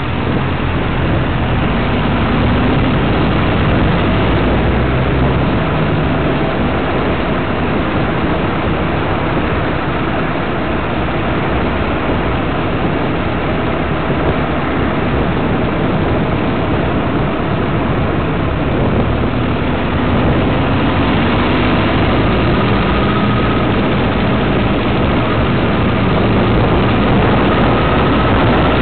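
Car driving: steady engine and road noise, the engine note climbing slightly a few seconds in and again past the middle as it speeds up.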